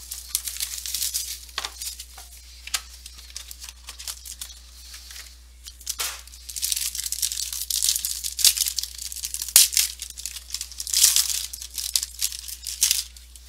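Plastic and foil wrapping of a trading-card box and pack being torn open and crinkled in the hands, in irregular stretches of crackling, with one sharp snap about nine and a half seconds in.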